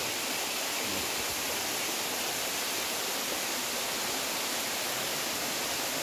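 Waterfall of thin cascades spilling down a mossy rock face: a steady, even rush of falling water.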